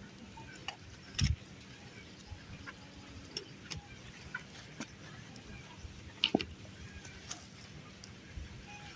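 Irregular light clicks and taps of things being handled, with a dull thump about a second in and a short cluster of sharper clicks a little after six seconds.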